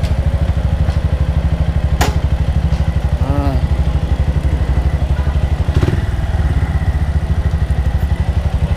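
Motorcycle engine idling with a steady, even pulse, and a sharp click about two seconds in.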